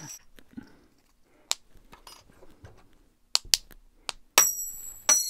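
Bimetallic jumping disc: a few light clicks as it is handled, then about four seconds in a sharp snap and a bright metallic ring as the small disc pops and lands on the table, with a second ringing clink near the end.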